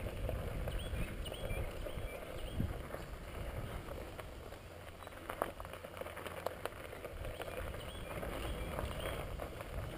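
Hardtail pedal-assist bicycle rolling over loose dark gravel: a steady crunch and rumble of the tyres on the ground, with scattered clicks and rattles from the bike and a few sharper knocks in the middle.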